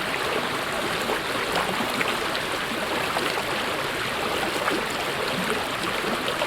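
Mountain stream flowing, a steady rush of water with constant small splashes and babbling over rocks.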